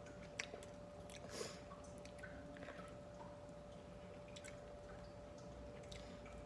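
Fried chicken being pulled apart with the fingers and chewed: faint, scattered crackles, squishes and small clicks of the crisp skin and meat, over a faint steady hum.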